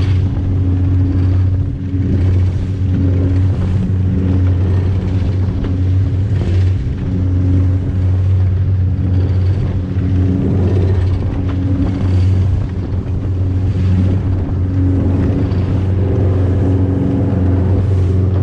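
Small fishing boat's engine running steadily at speed, a constant low drone, with the hull slapping through choppy waves and spray splashing past in irregular bursts.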